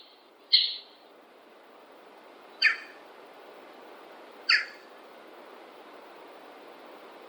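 Short, sharp bird calls over a steady background hiss: one call just after the start, then two more a little under two seconds apart in the middle.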